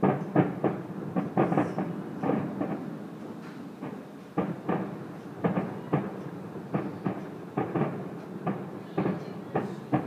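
Fireworks going off: a rapid, irregular series of bangs and pops in clusters, with a brief lull a little before the middle.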